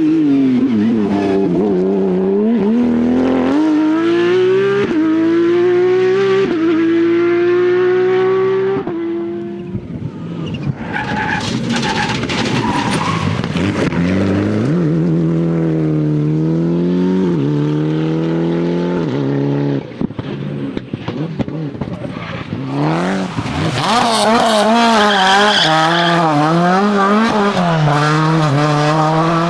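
Rally cars driven hard on a special stage, one after another. Their engines rev and climb in pitch, dropping back with each gear change, and the sound turns rougher and noisier in places.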